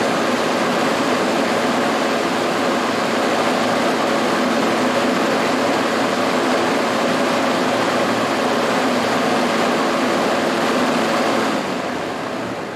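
A 24-inch Americraft tube axial fan with a non-sparking aluminum airfoil propeller running at full speed, a loud steady rush of air. About a second before the end it is switched off and the sound starts fading as the blades coast down.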